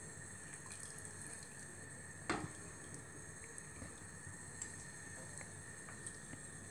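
Wooden chopsticks lifting braised chicken pieces out of red sauce in a stainless steel pot, with faint wet sloshing and small ticks. One sharp click comes about two seconds in.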